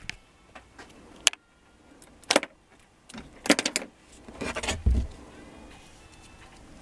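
Handling noise from a rewound electric motor's stator housing and its lead wires being moved on a workbench: a few separate clicks and rattles, then a short stretch of rustling and knocking ending in a dull thump about five seconds in.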